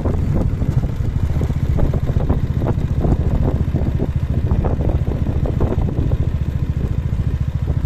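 Motorcycle engine running steadily while being ridden, with a fast, even low pulsing.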